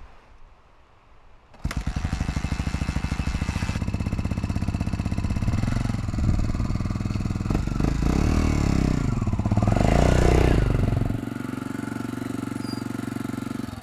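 Honda 250R dual-sport motorcycle's single-cylinder four-stroke engine catching about two seconds in and running with a rapid even beat, revved up and down a few times, then pulling away and fading as the bike rides off. A cold start after the bike has sat out overnight in winter weather.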